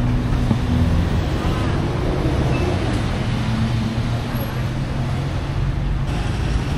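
Steady city-street traffic noise: vehicle engines running and passing, with a low hum and some voices of passers-by mixed in.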